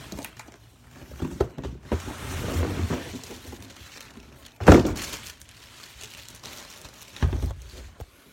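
Cardboard box and plastic packaging being handled and rustled during an unboxing, with scattered knocks, a loud thunk a little past the middle, and another thunk near the end.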